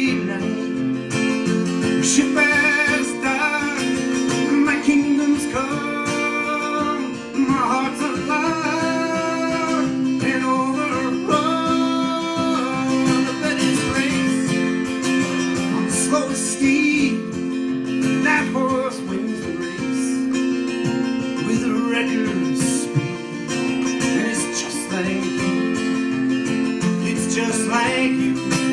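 Live solo acoustic guitar strummed in a steady song accompaniment, with a man's voice singing over it in long held, wavering notes.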